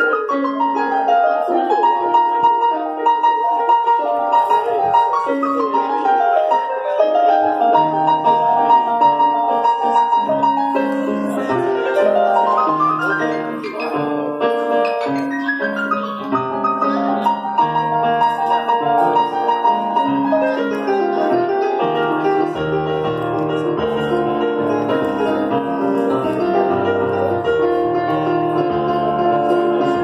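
Piano sound from a Korg stage keyboard played as a solo: fast runs cascading down and up the keyboard over held chords. Low bass notes come in about eight seconds in and get heavier about two-thirds of the way through.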